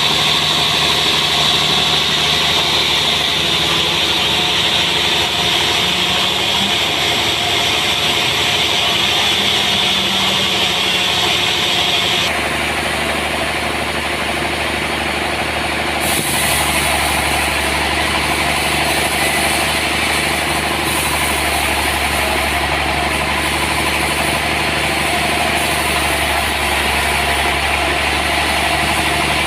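Sawmill machinery running steadily with an engine drone while a trembesi log is sawn. The sound shifts abruptly twice, about twelve and sixteen seconds in.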